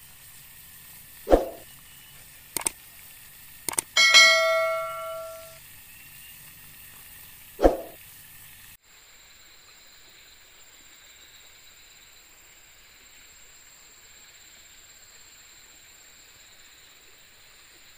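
Logo sound effects: a sharp hit, a few quick clicks, then a bell-like chime ringing out for about a second and a half, and another sharp hit. From about nine seconds in, a quiet steady outdoor ambience with a high-pitched insect drone.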